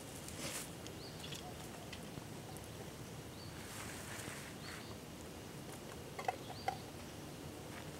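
Soft rustling of dry pine needles and leaf litter as a person steps about and sets a foam sit pad down on the ground. A few faint, short, high chirps come through, and two sharp clicks are heard near the end.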